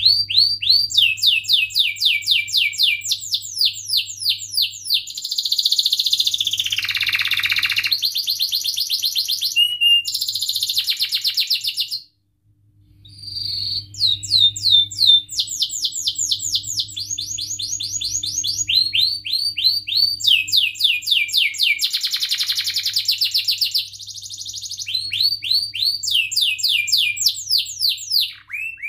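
Domestic canary singing a long rolling song: rapid runs of repeated downward-sweeping chirps and trills. It breaks off for about a second near the middle, then starts again.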